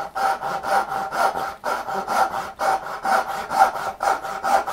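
Hand saw cutting a finger-joint cheek down to the depth line in poplar, in short, quick back-and-forth strokes, about four a second.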